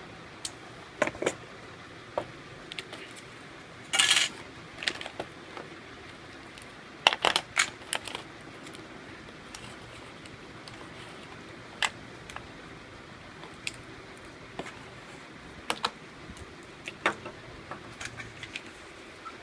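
Scattered light clicks and taps of small hard objects being handled: the iPhone 6S, its box and accessories. A short scraping rustle about four seconds in and a quick run of taps a few seconds later stand out above a faint steady hiss.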